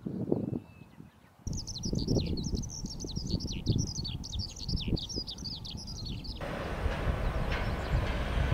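A small songbird singing a fast, continuous run of high chirps over a low rumble, cut off abruptly about six seconds in; a steady broad rushing noise then takes over, the start of a jet airliner's engine noise.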